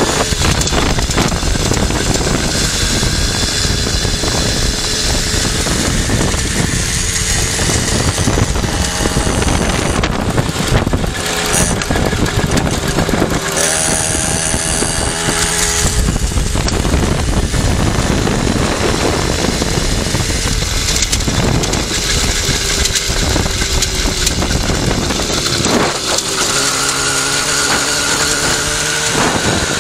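Riga-13 moped's small two-stroke engine running while under way, mixed with heavy wind noise on the microphone. The engine's note stands out more clearly about halfway through and again near the end.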